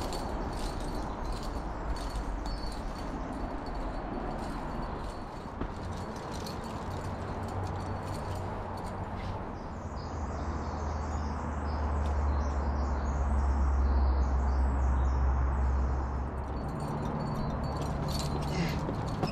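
Wind rumbling on the microphone, strongest in the middle of the stretch, with faint metallic clinking and scattered clicks throughout.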